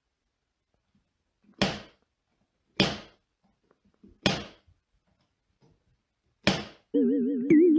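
Four sharp bangs, spaced one to two seconds apart, each with a short room echo. Near the end, music with a slow wobbling, wavering tone begins.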